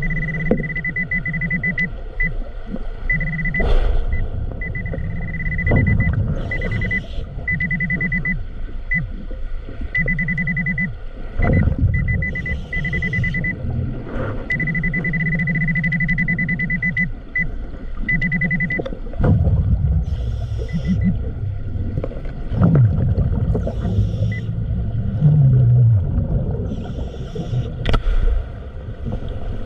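Underwater metal detector sounding a steady high tone that keeps cutting in and out for the first twenty seconds or so. Under it runs a muffled low rumble with bubbling and knocks, and there are a few short falling low groans near the end.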